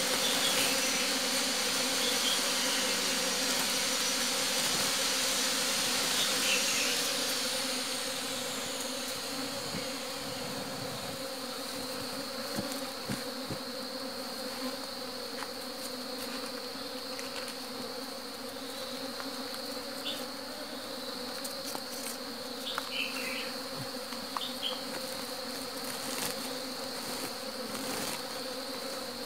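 A mass of honeybees buzzing steadily, a low even hum. A louder broad hiss covers about the first seven seconds, and a few light rustles come later.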